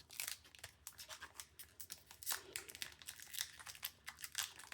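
A trading card pack's wrapper being torn open and crinkled in the hands: a quick run of sharp crackles and rips.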